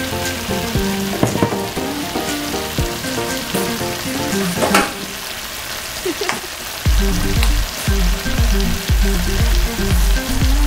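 Pork belly and onion sizzling as they fry in a pot, under background music whose heavy bass beat comes in about seven seconds in.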